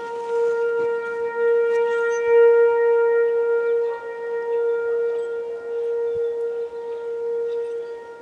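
T-128 outdoor tornado warning siren sounding a steady tone for a statewide tornado warning drill. The pitch holds level while the loudness rises and falls a little.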